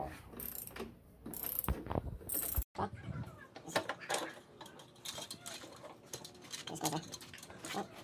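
Socket ratchet wrench clicking in about three short strokes while the rear axle nut is worked loose. It cuts off suddenly, followed by scattered light metallic clicks and knocks as the rear wheel and chain are handled.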